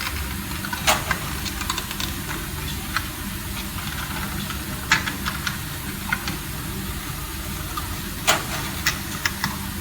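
Scattered clicks and light taps from wiring work on DIN-rail devices, from wires and a screwdriver at the terminals as neutral wires are connected, with three sharper clicks. A steady low hum lies underneath.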